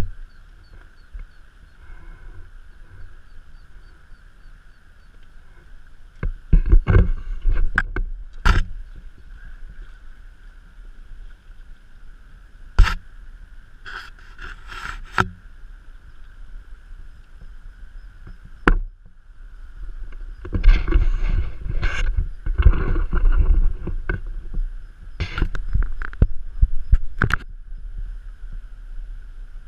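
Kayak being paddled: irregular clusters of paddle splashes and knocks on the hull over a steady hiss of water.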